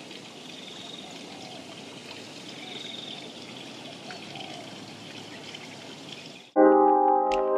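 Steady outdoor rushing noise with faint high chirps now and then. About six and a half seconds in, it cuts off and loud keyboard music starts abruptly.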